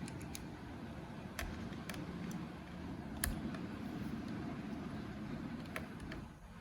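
Scattered light clicks and taps of a small screwdriver working the screw on a laptop's hard-drive bracket, over a steady low background rumble.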